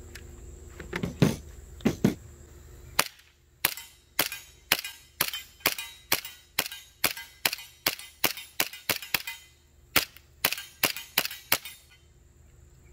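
A Jag Arms Hi Capa gas blowback airsoft pistol, running on green gas, fires a string of about twenty sharp snapping shots, two to three a second, with a brief pause partway through. A few loud clacks of the pistol being handled come first.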